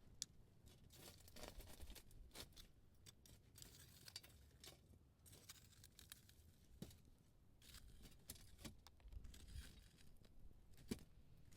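Wood fire crackling faintly, with irregular pops and snaps over a low hiss; the sharpest snaps come just after the start and about a second before the end.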